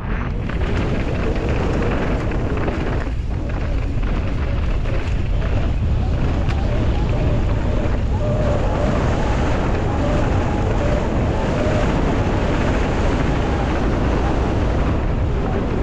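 Steady wind noise buffeting the microphone, with low rumble from a downhill mountain bike running over rough track.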